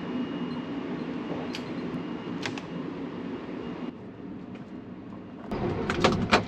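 Steady low rumble of a sleeper train running, heard from inside the car, with a couple of faint clicks. About four seconds in the sound drops abruptly, and near the end come louder clicks and knocks as someone handles things in the compartment.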